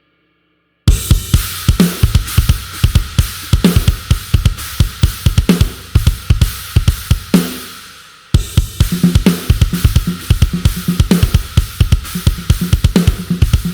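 Sampled rock drum kit from GetGood Drums' "One Kit Wonder Aggressive Rock" Kontakt library playing a groove: fast, steady kick-drum strokes under constant cymbals, with a heavier hit about every two seconds. It starts about a second in, breaks off for a moment about eight seconds in, and comes straight back in.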